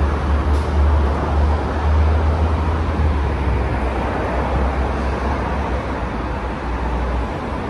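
Steady traffic noise from a busy multi-lane road below: the mixed sound of many passing cars' tyres and engines, with a strong deep rumble underneath.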